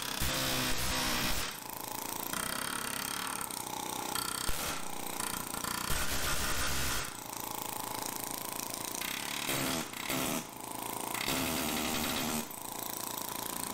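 Pneumatic air hammer hammering against a steel suspension control arm to drive out a rubber bushing. It runs in a series of bursts of a second or so, with short pauses between.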